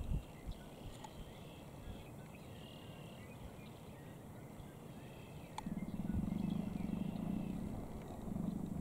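Wild turkey tom in strut spitting once, a sharp short pop about five and a half seconds in, then drumming: a low, pulsing hum for about two seconds that starts again just before the end. Faint small-bird chirps in the first half.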